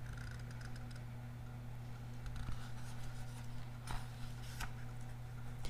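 Paper pages of a hardcover picture book handled and turned by hand: faint rustling, with two sharper page flicks around four seconds in. A steady low hum runs underneath.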